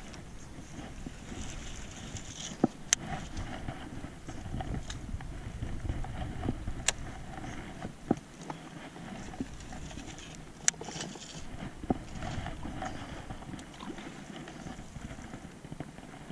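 Wind and water lapping against a small fishing boat, a low steady rumble, with several sharp clicks and knocks scattered through it.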